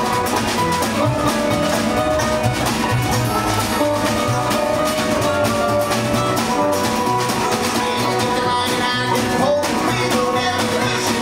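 Live acoustic string band playing an old-time country tune: banjo picking, acoustic guitar strumming and upright bass.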